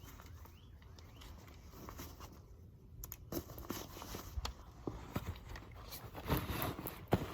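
Irregular rustling, scuffs and small clicks like footsteps and gear being handled, growing busier about three seconds in.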